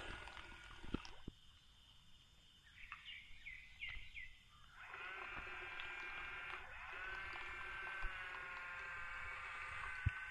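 Small electric motor of a homemade RC boat built from RC helicopter parts, a steady high whine that comes in about five seconds in as the boat runs across the water. It is preceded by a few short high chirps.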